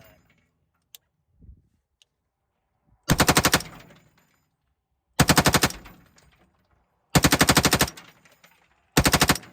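Lima6 belt-fed AR-15 upper firing IMI 77-grain 5.56 ammunition in four short rapid bursts, each under a second long, with a pause of about a second and a half between them. The belt feeds and fires without stoppage.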